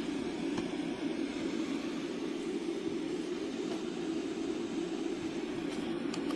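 A white-noise sleep machine playing one of its steady noise sounds through its small speaker: an even, unchanging rush, fullest in the low-middle range.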